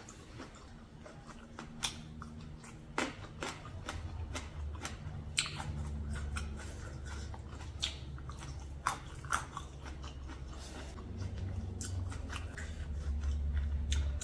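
A person eating close to the microphone: biting and chewing, with crisp crunches and sharp clicks scattered through, and a low chewing rumble that grows louder about halfway in.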